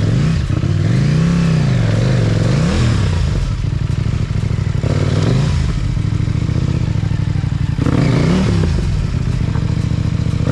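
Dual-sport motorcycle engine running while ridden, its pitch rising and falling again and again with the throttle, with some clatter over the top.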